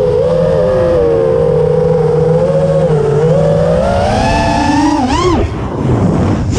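Quadcopter drone's electric motors and propellers whining, heard from the drone's own camera, the pitch gliding up and down with the throttle. About five seconds in the whine climbs sharply and falls away, then dips briefly as the throttle is cut.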